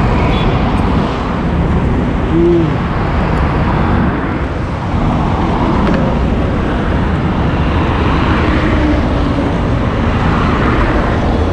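Steady traffic noise from cars and buses passing on a multi-lane highway.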